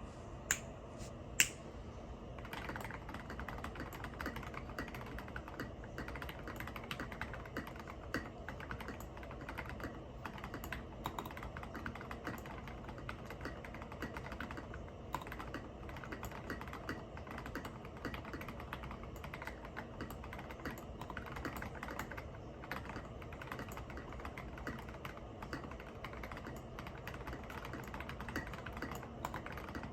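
Steady typing on a Foxlabs Time 80 Reforged custom TKL mechanical keyboard with a brass plate, lubed Alpaca linear switches and SA sculpted keycaps: a dense, continuous run of keystroke clacks. It opens with two louder sharp clicks in the first two seconds before the typing gets going.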